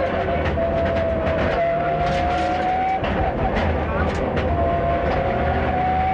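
Rally car engine heard from inside the cabin, pulling hard on a twisty tarmac stage. Its pitch climbs steadily and dips briefly a few times as the driver changes gear or lifts for corners, over a heavy low drone of engine and road noise.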